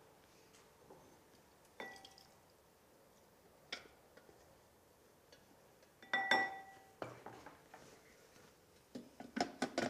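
Spatula knocking and scraping against a stainless steel Thermomix mixing bowl: scattered metallic clinks, the loudest ringing clang about six seconds in, then a quick run of knocks near the end as the bowl is set back into the machine's base.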